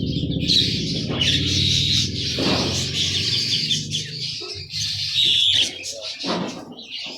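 Many caged songbirds chirping and twittering in short high calls, with a motorcycle engine running low underneath that fades away over the first few seconds.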